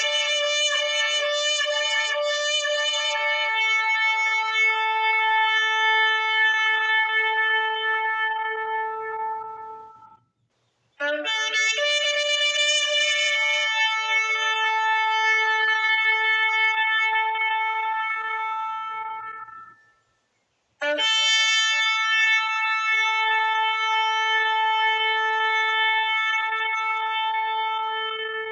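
Shofar (ram's horn) blown in long sustained blasts: one already sounding, then two more starting about 11 and 21 seconds in. Each holds for about nine seconds, shifts to a lower tone partway through and fades out, with a brief pause before the next.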